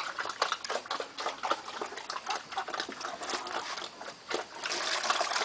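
Pigs eating at feed: irregular wet chomping and smacking clicks, with a rushing noise building near the end.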